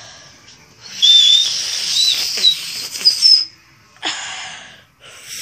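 A girl trying to whistle with her fingers at her lips: mostly a loud rush of blown breath, with a few short, thin, high whistle notes breaking through. Two shorter puffs of breath follow.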